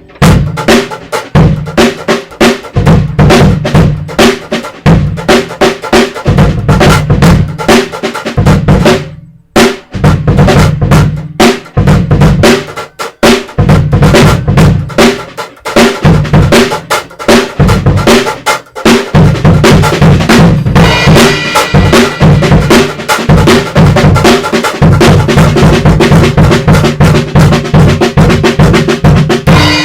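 Mini drum kit played with Hot Rods (bundled dowel sticks): a busy groove of bass drum and snare, with a short break about nine seconds in. A cymbal rings over the hits in the last third.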